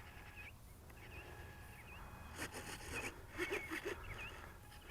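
Quiet outdoor ambience with scattered short, high bird chirps, plus a few soft rustles.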